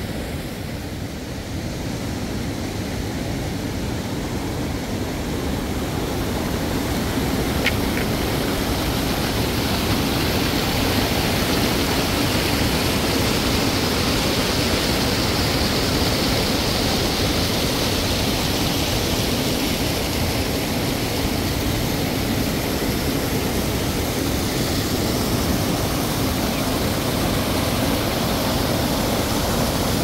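Water rushing and splashing steadily as it pours through the concrete channels and spills into fish-farm raceways, growing a little louder in the first several seconds.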